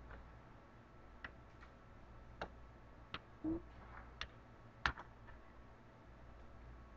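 Light, scattered clicks and taps of small objects being handled at a work surface: about half a dozen at irregular intervals, the loudest about five seconds in, with a brief low squeak a little after three seconds, over a faint steady hum.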